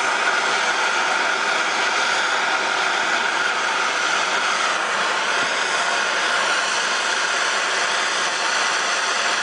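Hand torch on a yellow MAP-gas cylinder burning with a steady hiss while it heats a copper pipe joint for soldering.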